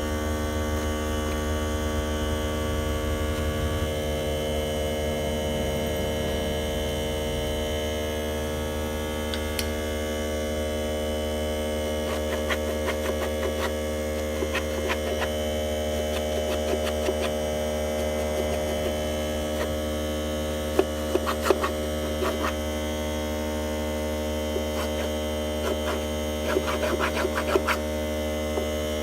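A steady machine hum with several held tones, joined from about the middle by scattered clicks and rattles, in short clusters in the last third.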